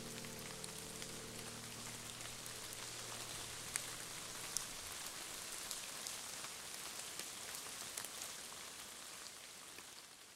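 Gentle, steady rain falling in a forest: an even hiss with scattered sharp drop ticks on leaves, fading away near the end.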